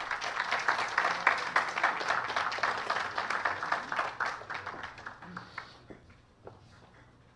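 Audience applauding, dying away after about five seconds, with a few last scattered claps.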